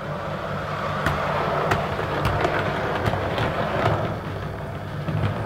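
OO gauge Class 143 Pacer two-car model unit running along the track. Its motor hums steadily under the rumble of small wheels on rails, with a string of sharp clicks as the wheels cross rail joints and points.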